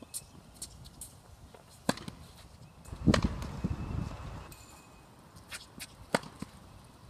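Tennis ball struck by a racket: a few sharp pops a second or more apart, the loudest about three seconds in, with fainter ticks between.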